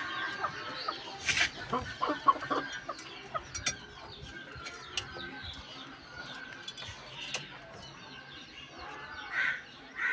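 Chickens clucking in short, repeated calls, with a couple of louder calls near the end. A few sharp knocks sound in the first few seconds.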